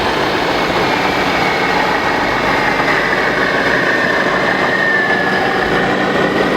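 Steady mechanical running noise from RC construction models, with a faint high whine that drifts slightly lower about halfway through.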